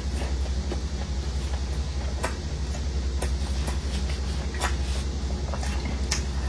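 Close-miked eating: irregular chewing clicks and mouth crackles over a steady low hum.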